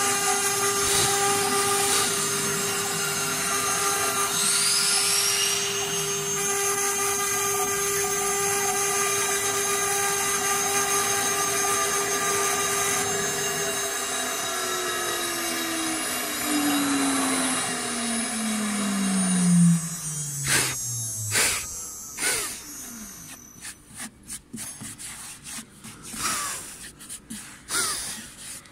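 CNC router spindle engraving a fibreboard sheet: a steady high whine with cutting noise. About halfway through, the whine falls steadily in pitch as the spindle spins down and stops at the end of the job. Scattered knocks and rubbing follow.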